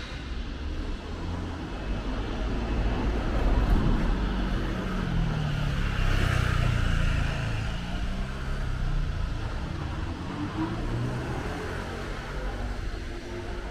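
A car drives past on a city street: its engine and tyre noise build up, are loudest about six seconds in, then fade away.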